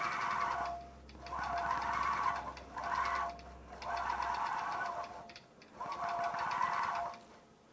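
Longarm quilting machine stitching in five short runs of rapid, even needle strokes over a steady motor whine, with brief pauses between runs. It stops near the end.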